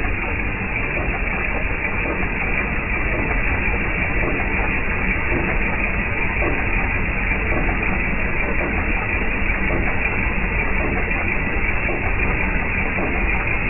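Jeep Wrangler TJ's 4.0 L inline-six engine running steadily.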